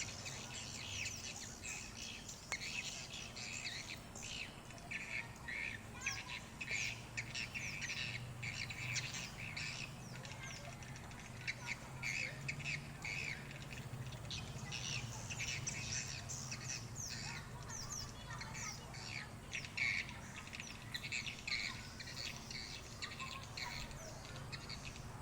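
Many swiftlets chirping: a dense, continuous stream of short, sharp, high twittering chirps. A low steady hum runs underneath.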